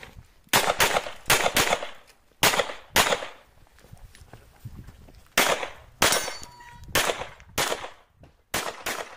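Handgun shots fired in quick pairs, about a dozen in all, with a pause of nearly two seconds near the middle before the pairs resume.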